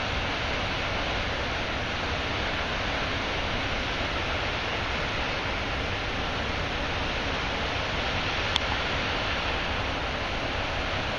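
Water pouring over a low spillway dam: a steady, even rush with no change in level. A single brief click about eight and a half seconds in.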